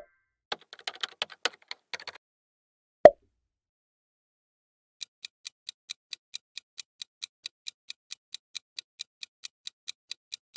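Sound effects from a quiz: a short patter of keyboard-like typing clicks, a single sharp pop about three seconds in, then a clock-like countdown timer ticking quickly and evenly, about four to five ticks a second.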